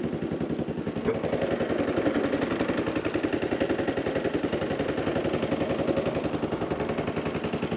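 Small single-cylinder gas engine on the stern of a canoe running steadily, its exhaust giving a fast, even run of beats at about a dozen a second.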